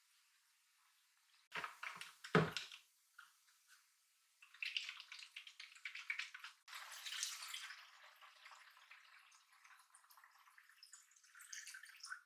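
Water splashing and dripping in irregular spurts, with a couple of knocks about two seconds in.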